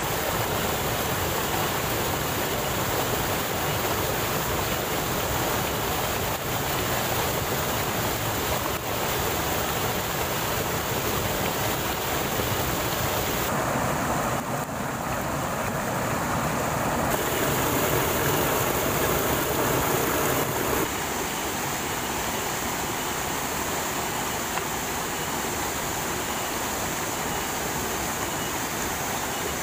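Rushing water of a rocky mountain stream pouring over small cascades into pools: a steady, full-range rush whose tone changes abruptly a few times.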